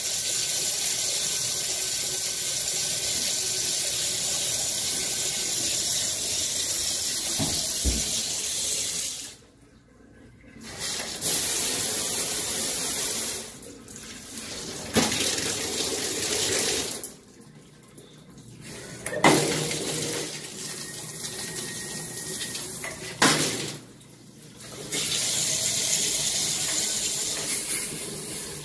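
Water running from an Ello and Allo shower panel, spraying from the rainfall head, with a steady rush that stops briefly and starts again three times as the panel is switched between outlets.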